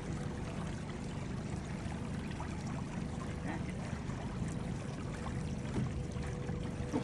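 Boat's motor running at low speed with a steady low rumble and a faint steady whine, over water moving and trickling.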